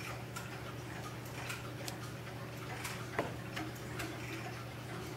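Several vintage Schatz "Pendulo" swinging wall clocks ticking together out of step, giving an uneven patter of sharp ticks, several a second.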